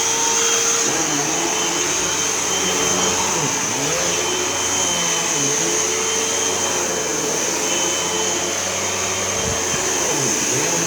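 Hoover Elite Whole House upright vacuum running steadily at full speed, with a high whine over a motor hum. The lower hum dips and recovers in pitch every second or two.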